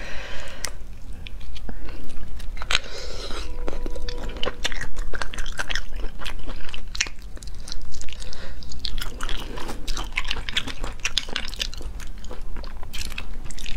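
Close-miked chewing of sea snail meat, with many short sharp clicks as the snail shells are handled and picked at with a toothpick.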